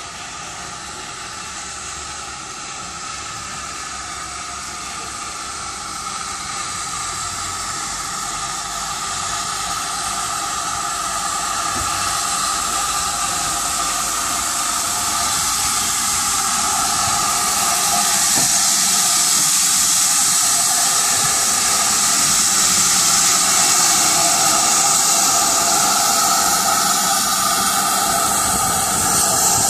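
GWR 5101 Class Large Prairie 2-6-2 tank engine 4141 hissing steam as it draws slowly up close. The steady hiss grows louder throughout, with no clear exhaust beat.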